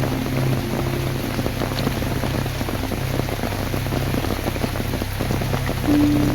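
Steady rain falling, with many individual drops pattering on surfaces. A few soft music notes come in near the end.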